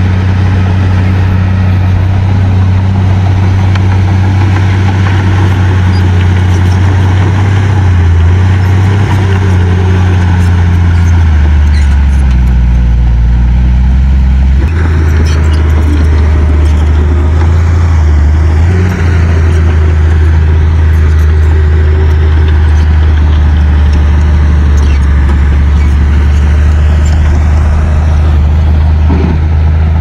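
Crawler bulldozer's diesel engine running steadily and loudly. About halfway through, its note drops lower for a few seconds, then returns.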